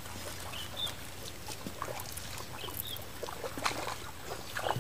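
Light splashing, dripping and rustling as hands pluck water clover from shallow water, with a few short bird chirps.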